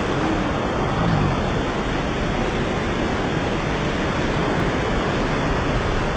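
Torrential rain pouring down in a steady, dense hiss.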